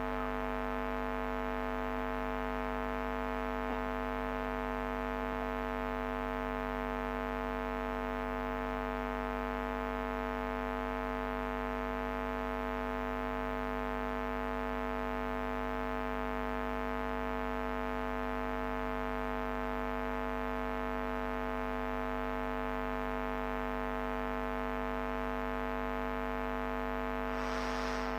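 A steady electronic hum made of several held tones at once, unchanging in pitch and level throughout.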